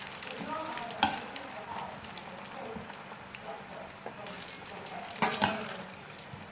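French fries frying in oil, a steady sizzle, with a sharp knock about a second in and two more close together near the end.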